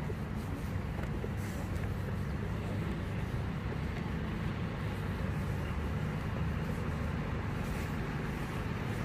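Steady low rumble of street traffic, with a car engine as an SUV drives slowly by.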